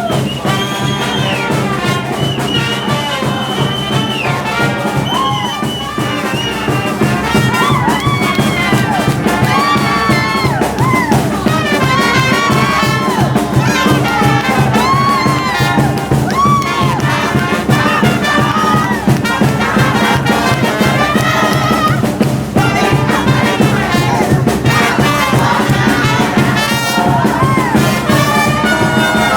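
A music track with a steady beat and a melody line over it.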